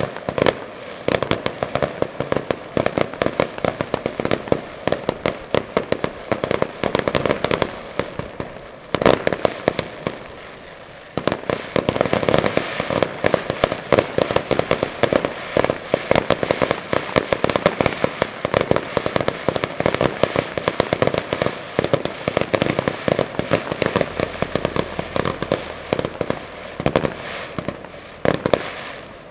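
Fireworks display: a dense stream of rapid cracks and pops from aerial bursts, thinning briefly about ten seconds in, then building again before dropping away near the end.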